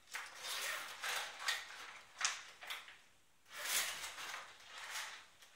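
Zip of a small clear plastic toy bag being pulled open by hand in several short pulls, with crinkling of the plastic and a few sharp clicks.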